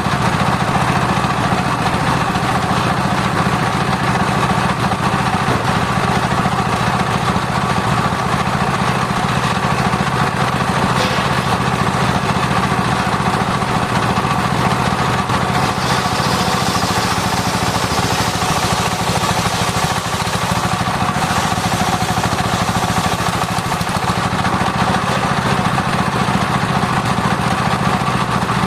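Circular-saw sawmill running steadily with a constant mechanical drone, sawing soft sengon (albizia) timber.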